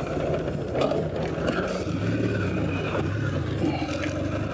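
Kawasaki W650's air-cooled parallel-twin engine running as the bike is ridden, its note dropping to a lower pitch about two seconds in.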